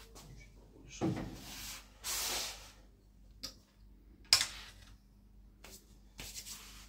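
Hands fitting metal test pieces on an oil friction test bench. A dull knock comes about a second in and a short hiss just after, then a few sharp metal clicks; the loudest click comes about four seconds in.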